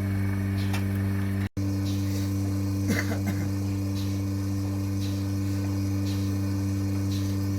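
Milking machine's electric vacuum pump humming steadily, with faint pulsator ticks about once a second. A short sound comes about three seconds in, and the audio drops out for a moment about a second and a half in.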